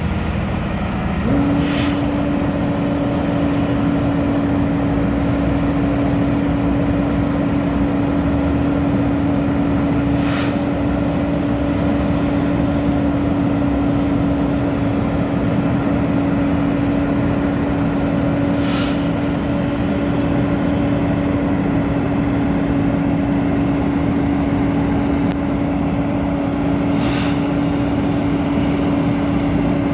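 Freightliner M2 concrete pump truck's diesel running, with a steady whine that sets in about a second in and holds. A brief hiss comes four times, about every eight seconds.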